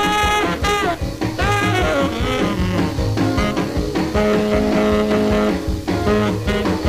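Swing band instrumental playing from a 1949 Atlantic 78 rpm shellac record. Melody notes bend in pitch in the first second, and long held notes sound in the middle.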